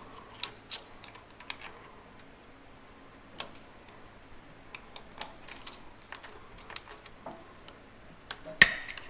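Screwdriver tips picking at a steel snap ring held under press tension in a Farmall 806 PTO clutch pack: scattered small metal clicks and scrapes, with one sharper, louder clack near the end as the tool slips.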